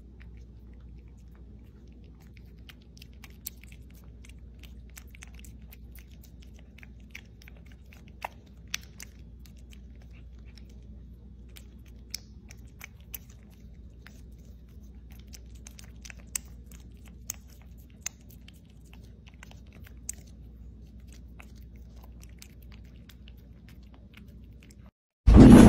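A cat licking puree from a squeeze-tube treat: faint, sharp licking and smacking clicks, scattered and irregular, over a low steady room hum. Near the end, loud music cuts in suddenly.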